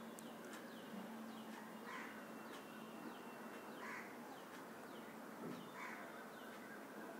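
Crows cawing faintly in the background, one call about every two seconds, with many short high falling chirps from other birds between them over a low steady hiss.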